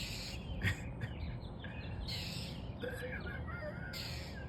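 A bird giving harsh, raspy calls about every two seconds, with a few thin wavering chirps between them, hollering at a cat below it.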